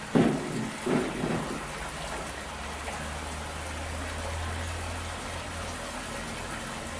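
Tap water rushing through a water-jet aspirator pump: a steady hiss that draws suction through the apparatus. A low hum joins in the middle, and there are two brief louder sounds about a second in.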